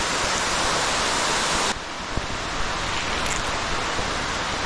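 Underground waterfall pouring down a cave pit: a steady rush of falling water. It drops a little and turns duller a little under two seconds in.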